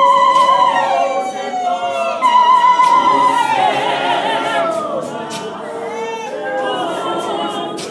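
A group of voices singing, with a high voice holding long, wavering notes twice.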